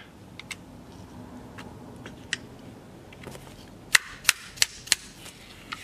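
Small hammer tapping steel roll pins into a Merkel RX Helix rifle's action to seat them flush. A few faint clicks come first, then six sharp metallic taps, about three a second, starting about four seconds in.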